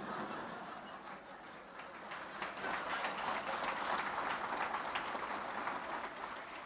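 Audience laughing and applauding, the clapping swelling about two seconds in and tapering off near the end.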